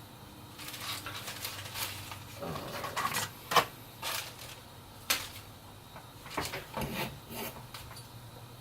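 Hands rustling and handling small computer parts while fetching a SATA data cable, with scattered light clicks and taps; the sharpest clicks come about three and a half and five seconds in.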